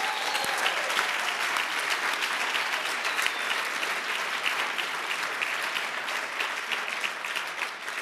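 Audience applauding: many hands clapping steadily, easing off slightly near the end.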